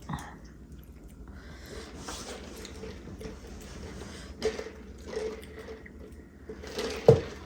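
Messy eating of a saucy seafood boil: hands working crab in sauce give stretches of squishing, crackling noise. There is a sharp click near the end, the loudest sound.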